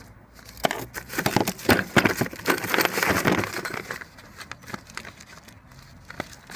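Loose nails being handled, rattling and clinking in a dense clatter for about three seconds, then a few scattered clicks.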